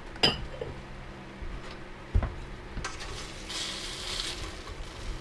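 Vegetables being stirred in a steel wok with a wooden spatula: a sharp metal clink just after the start, a dull knock about two seconds in, light ticks, and a short scraping hiss around three and a half to four seconds, over a steady low hum.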